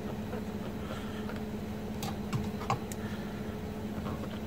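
Kitchen knife slicing a shiitake mushroom on a plastic cutting board: a few light knocks of the blade against the board, bunched about two to three seconds in, over a steady low hum.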